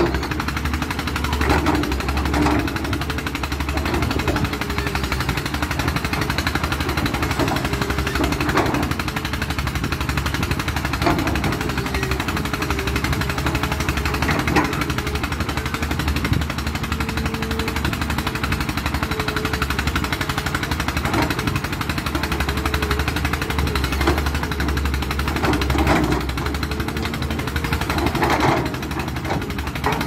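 Caterpillar hydraulic excavator's diesel engine running under load while digging. Its pitch rises and falls as the hydraulics work the boom and bucket, with occasional sharp knocks.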